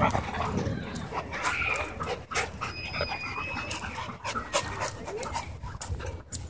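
Several dogs panting and scuffling close by as they wrestle in rough play, with scattered knocks and rustles from their paws and bodies on the dirt and dry leaves.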